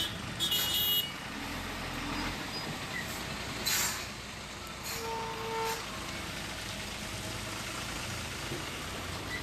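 Road traffic noise around a stalled dump truck at a level crossing, with a short horn toot lasting about half a second, about five seconds in.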